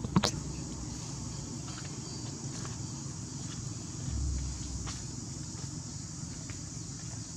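Outdoor ambience of steady, high-pitched insect buzzing, with a sharp click about a quarter second in, a few faint ticks, and a brief low rumble around four seconds in.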